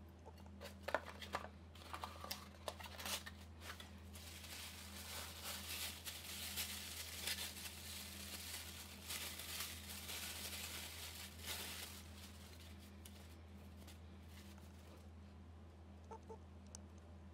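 Crinkly tissue paper rustling as it is pulled out of a cardboard box, loudest in the middle, after a few light clicks and knocks of handling. A steady low hum runs underneath.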